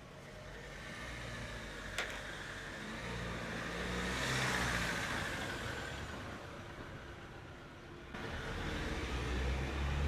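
A road vehicle passing by, its noise swelling to a peak about halfway through and then fading, with a single sharp click about two seconds in. A low engine rumble sets in suddenly near the end.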